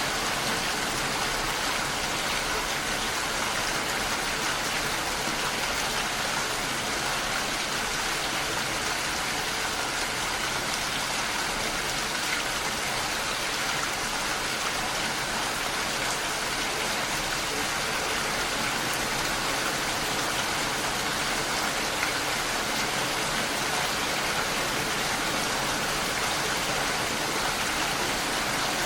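Steady rain: an even hiss with a light patter of drops.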